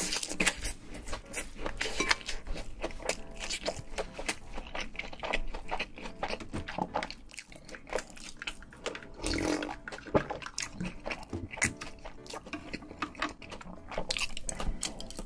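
Close-miked chewing of crunchy food: irregular wet crunches and mouth clicks all through, with a sip and swallow of cola from a glass about halfway.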